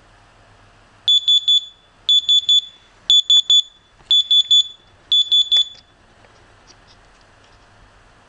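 Electronic buzzer of an Arduino countdown timer sounding its alarm as the countdown reaches zero: five bursts of about four rapid high-pitched beeps, the bursts about a second apart, starting about a second in and stopping about six seconds in.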